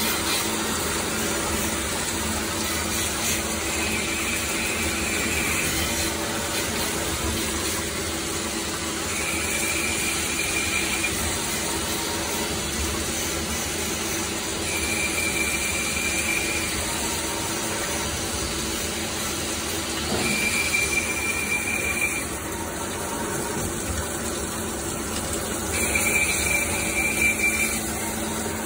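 CNC lathe cutting a metal part under flood coolant: steady machine running noise and coolant spray hiss. A high-pitched whine lasting about two seconds comes back five times, roughly every five to six seconds.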